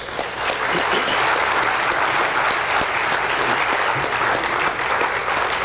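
Audience applauding in a large room: steady clapping from a crowd, easing slightly near the end.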